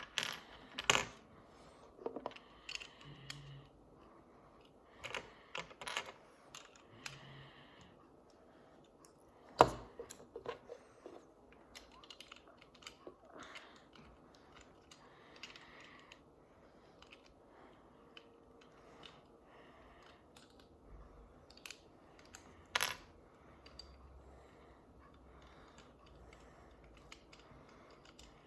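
Small plastic toy pieces clicking and clattering as they are handled and fitted together, with scattered light knocks. The sharpest knocks come about ten seconds in and again a little past twenty seconds.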